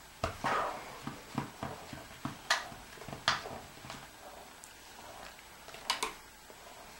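Irregular light taps and clicks of a plastic Play-Doh popcorn-machine toy and dough being handled on a tabletop, with a sharper double click near the end as the machine's plastic plunger is pulled up.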